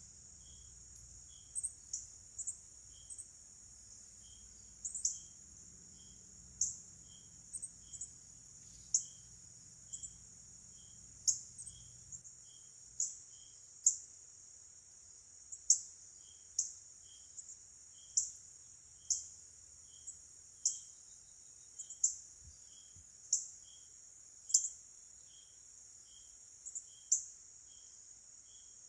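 Insect chorus: a steady high buzz with sharp loud pulses about once a second and a fainter high chirp repeating about twice a second.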